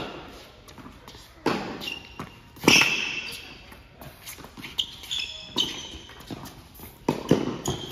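Tennis rally in an indoor hall: racket strikes and ball bounces ringing out with echo, every second or few seconds, with sneakers squeaking on the court between shots.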